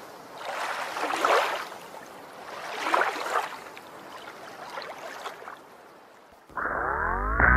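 Water washing in slow swells, one roughly every two seconds, like small waves lapping. Near the end, music comes in with a rising glide.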